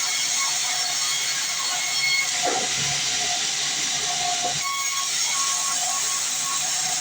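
Sawmill band saw running through a log: a steady high hiss with faint steady tones underneath and a couple of brief falling sweeps.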